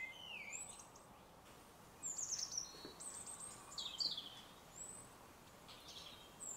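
Songbirds singing: short, high chirping and whistled phrases, busiest from about two seconds in, over a faint steady outdoor background.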